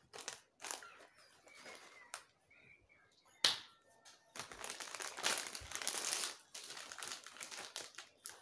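A plastic Lay's potato chip packet crinkling as it is handled and pulled open: one sharp crackle, then several seconds of steady crinkling.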